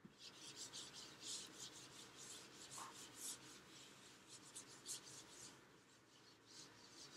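Whiteboard eraser being rubbed across a whiteboard to wipe off marker, making faint swishing strokes about three a second.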